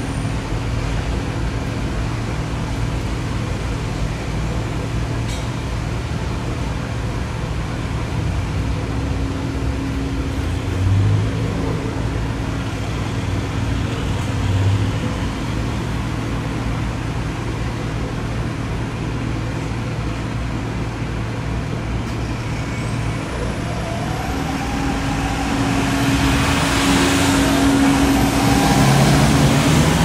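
Road traffic on a busy city street: a steady low engine hum under a constant wash of passing vehicles. Two brief louder swells come about a third and halfway through, and more vehicles pass, louder, near the end.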